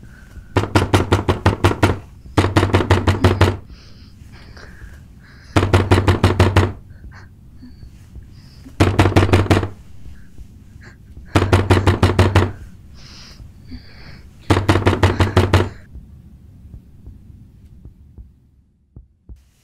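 Someone banging loudly on a wooden door with rapid blows, in six bursts of about a second each with pauses between.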